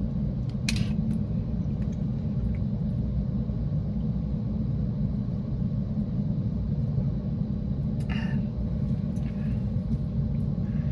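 Steady low rumble of a car's engine running, heard from inside the cabin. A sharp click comes just under a second in, and a short rustle about eight seconds in.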